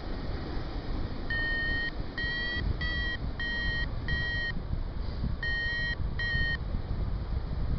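Paragliding variometer beeping: seven short, high beeps in two runs with a pause partway through, the tone the instrument gives while the glider is climbing in lift. Low wind rumble on the microphone underneath.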